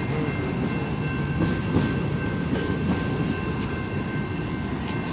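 A long train rolling past, its railroad cars giving a steady low rumble of wheels on rails with a few faint clacks.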